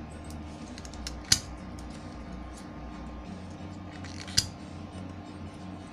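Blue rubber valve caps being pulled off the cells of a 12 V 7 Ah sealed lead-acid UPS battery: two sharp clicks about three seconds apart, with faint small ticks between.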